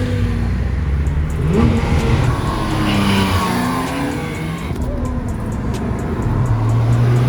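Performance car engines running at once, one revving up in pitch about one and a half seconds in, with a steady engine note near the end.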